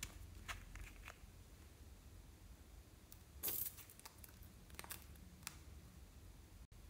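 Faint close-miked handling sounds of a plastic lip-gloss tube: a few sharp clicks early on as it is turned and uncapped, then a brief louder hissing scrape about three and a half seconds in as gloss is squeezed out onto foamy slime, with a couple of light ticks after.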